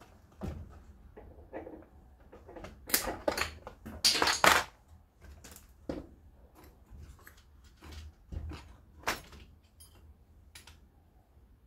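Irregular clicks, taps and short rattles of hand tools and small metal parts being handled during a chainsaw teardown, loudest about three to four and a half seconds in.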